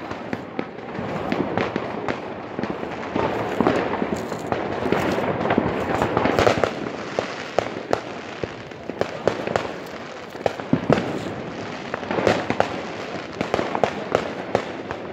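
New Year's Eve fireworks and firecrackers going off all around: a continuous crackle of many overlapping bangs and pops, with no pause.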